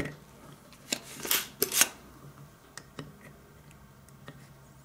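Clicks and small scrapes of hand desoldering on a circuit board: a soldering iron tip and a spring-loaded desoldering pump working a solder joint. A cluster of sharp clicks comes in the first two seconds, then a few fainter ticks.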